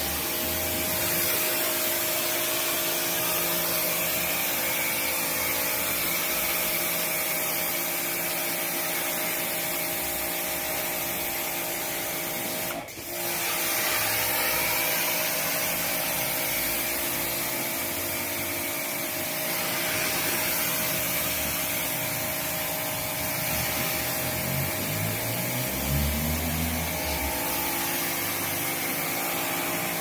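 WAP Combate 2600 pressure washer with a 2100 PSI induction motor running steadily under load, its water jet hissing against the floor. The sound dips briefly just before the middle, and a short rising tone comes a few seconds before the end.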